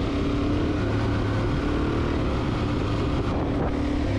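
Motorcycle engine running at a steady cruising speed, a steady hum with wind rushing over the microphone.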